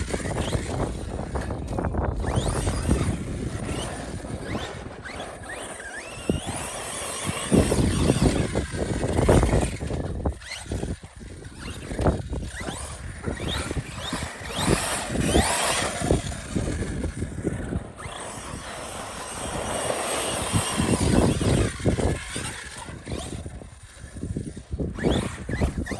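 Arrma Fireteam 6S brushless electric RC car driven hard outdoors: the motor whines, rising and falling as it is throttled on and off, with tyre and gravel noise and a few sharp knocks from landings and tumbles.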